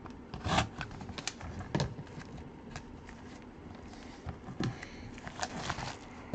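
Shrink-wrap plastic being picked at and peeled off a sealed cardboard box of trading cards by gloved hands: scattered crinkles and clicks.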